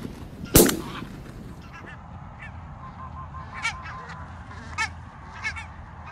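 A single shotgun shot about half a second in, then geese honking: a run of short, quieter calls and several louder honks.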